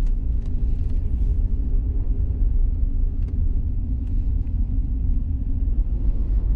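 Vehicle running as it drives slowly, heard from inside the cab: a steady low rumble of engine and road noise with a few light clicks.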